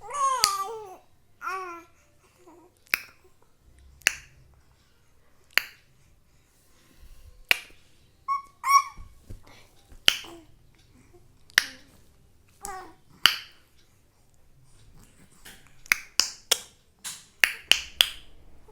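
A baby babbling in short high gliding coos at the start and again about halfway through. Between them come sharp single clicks every second or two, then a quick run of clicks near the end.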